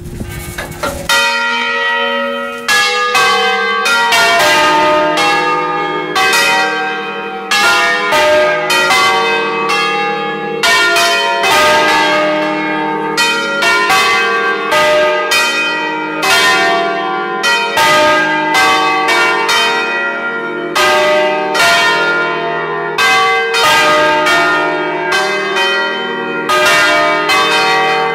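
A peal of five church bells in E-flat, cast by Achille Mazzola of Valduggia in 1951, heard from inside the bell chamber. The bells are swung on their wheels under the electric controller and strike over and over in an overlapping cascade, and the full peal sets in about a second in.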